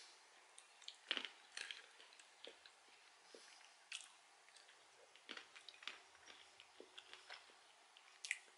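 Faint, irregular crunching of roasted peanuts being chewed with the mouth closed: scattered short crackles through the whole stretch.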